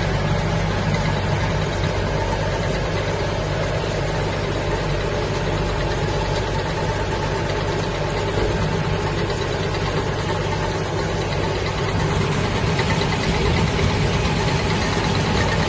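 Tractor engine running steadily at a constant speed while baling hay.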